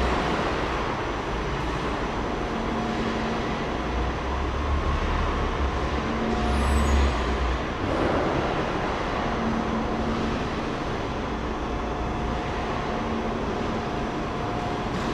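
Vehicle engine running in a large echoing warehouse hall, with a deep rumble that drops away about eight seconds in and a brief high squeal just before that.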